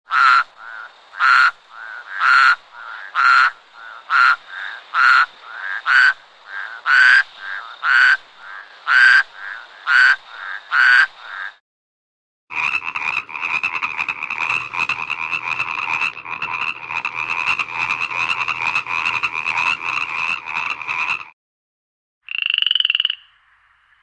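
Frogs calling, in three separate recordings. First, loud croaks about once a second with softer calls between, for about eleven seconds. Then, after a short break, a continuous dense trilling chorus for about nine seconds, and after another break a single short call near the end.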